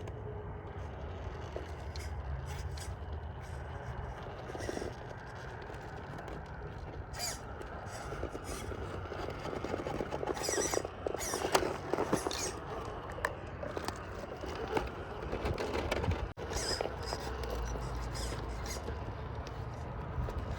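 Radio-controlled rock crawler with a Hobbywing Quickrun Fusion SE brushless motor crawling slowly over rock: a low steady motor and drivetrain running, with the tyres scraping and crunching on stone, the scraping thickest about halfway through.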